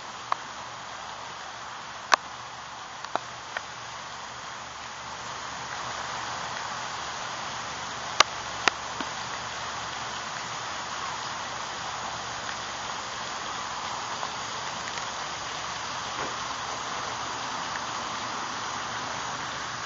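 Steady outdoor background hiss that grows a little louder about five seconds in, with a few sharp clicks scattered through it.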